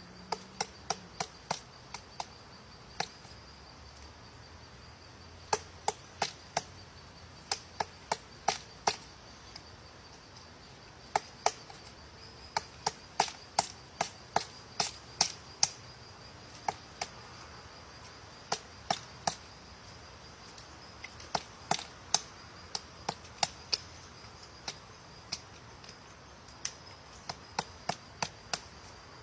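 Woodpecker pecking at wood: single sharp taps, in loose runs of a few strokes at about two or three a second, with pauses between runs. A faint steady high-pitched tone lies underneath.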